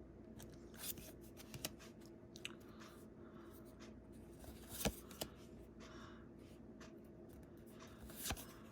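Trading cards being handled: Magic: The Gathering cards sliding, flicking and tapping as they are leafed through and set down, in scattered soft clicks and scrapes with a louder tap about five seconds in and another near the end.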